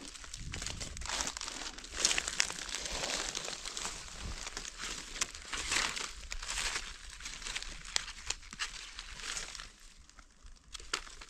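Dry fallen leaves rustling and crackling as they are handled and pushed aside on the forest floor, with many sharp little crackles; it eases off near the end.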